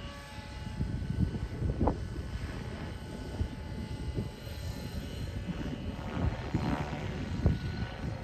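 Align T-Rex 550 electric RC helicopter in flight, its rotor and motor whine faint and steady over a low, uneven rumble.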